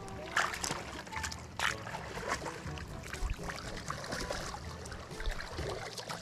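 Wet mud squelching and shallow water splashing as someone wades through pond mud and probes a puddle with metal tongs, with irregular sharp splats and clicks, the loudest about one and a half seconds in.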